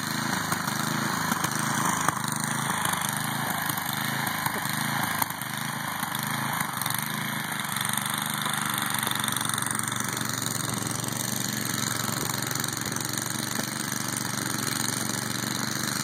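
Two-stage snowblower's small engine running steadily while it clears snow.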